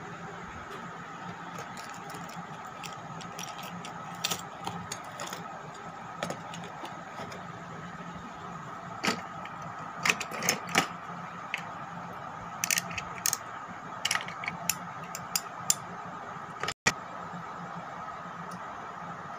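Fishing reels clattering and knocking together in a plastic tray as they are rummaged through and picked up: a scatter of sharp clicks and rattles, busiest in the second half, over a steady background hum.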